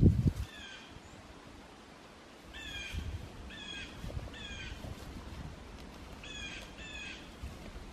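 A bird calling in the woods: about six short pitched calls, mostly in pairs, the first a little under a second in. A low thump at the very start.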